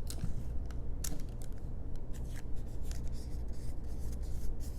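Scattered short clicks and rustles of adhesive tape and paper being handled while a paper tube is taped in place, over a steady low room hum.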